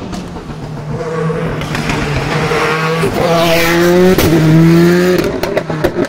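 Race car engine at high revs, growing louder as the car approaches, with a brief break in the engine note about four seconds in. A run of sharp pops near the end.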